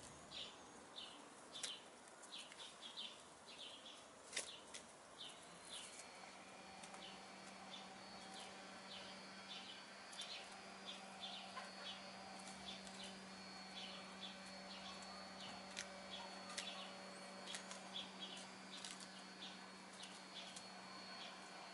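Faint yard ambience: a steady run of high, short chirps, several each second, with scattered soft clicks. A faint low hum comes in about six seconds in.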